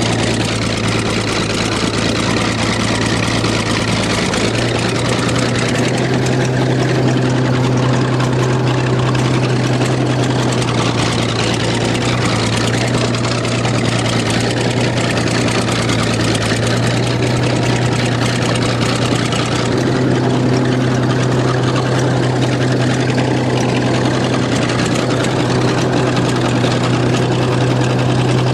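Engine running steadily with a deep, even hum, its pitch stepping up a little about five seconds in and again about two-thirds of the way through.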